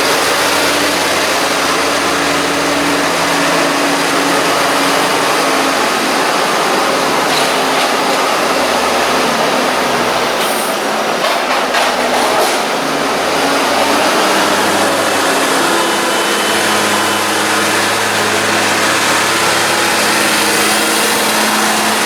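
Tractor's diesel engine running close by, its pitch shifting a few times as it works, with a few clicks about halfway through.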